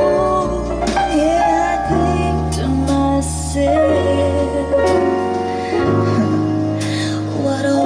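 Music: a slow, tender song with a singing voice over piano and bass.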